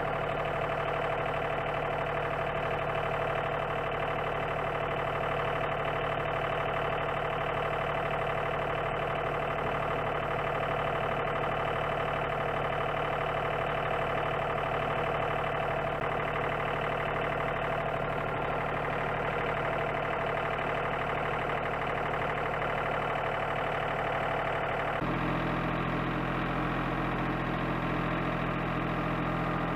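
A machine running steadily with a constant hum of several tones, its sound changing abruptly about 25 seconds in.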